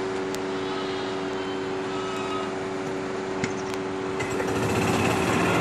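Steady electric hum of a livestock-shed ventilation fan. From about four seconds in, a louder, rougher engine-like noise builds over it.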